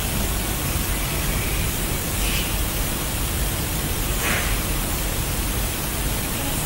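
Steady hiss of noise, with two faint brief sounds about two and four seconds in.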